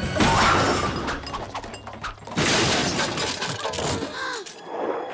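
Cartoon crash sound effects of food carts colliding: two loud smashing crashes about two seconds apart, over background music.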